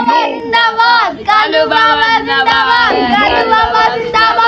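Singing: a song with held, gliding sung notes.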